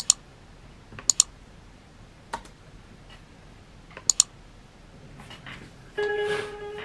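A few sharp clicks, some in quick pairs, in a quiet room. Faint music with held notes comes in about six seconds in.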